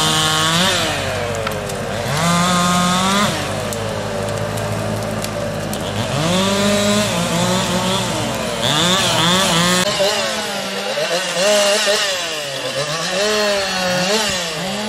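Two-stroke chainsaw engine running and revving up and down repeatedly, its pitch rising and falling every second or two as it cuts timber.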